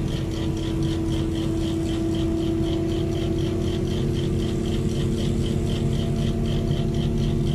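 Large mobile crane's diesel engine and hoist running steadily during a heavy lift: a steady machine hum with a held tone, overlaid by a fast, even high-pitched pulsing of about four to five beats a second.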